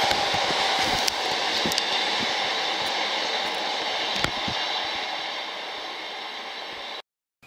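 Freight train hopper wagons rolling away on the rails: a steady rush of wheel noise with occasional sharp clicks over the rail joints, slowly fading as the train recedes, then cutting off suddenly near the end.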